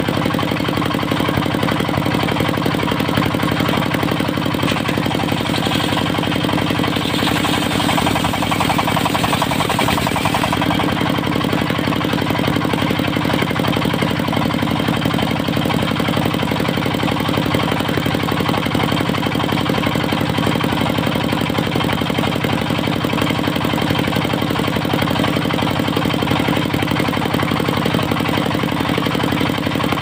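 Diesel engine driving a large circular saw blade, running steadily. The blade rips lengthwise through a teak log for roughly the first ten seconds, then spins on without cutting.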